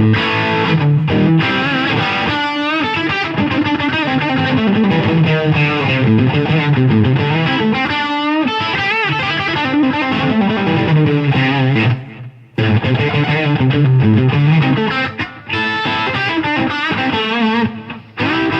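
Gretsch Electromatic Pro Jet electric guitar on its bridge pickup, played through a Blues Driver overdrive pedal: a mildly distorted run of single notes and chords, with the pitch wavering in places and a short break about twelve seconds in.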